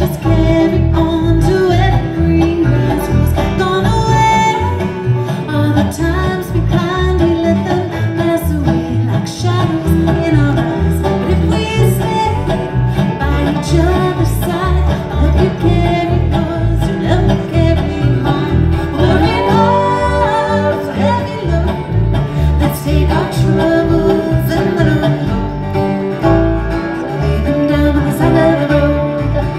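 Bluegrass string band playing, a fiddle with sliding notes over strummed guitar and a steady beat.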